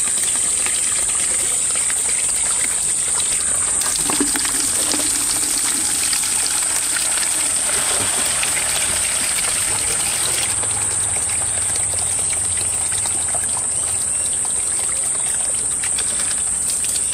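Water running from the bottom drain tap of a radial flow filter, pouring out of a PVC pipe into a plastic bucket as the filter is emptied of sludgy water. A steady high-pitched whine sits over it.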